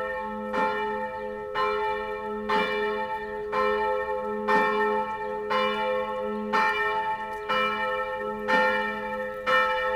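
Church tower bells ringing, with a stroke about once a second and the ringing tones carrying on between strokes.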